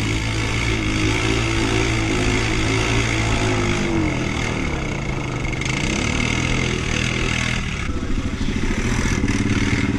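Quad bike (ATV) engines running, a steady idle with the revs rising and falling as a quad is worked through deep mud.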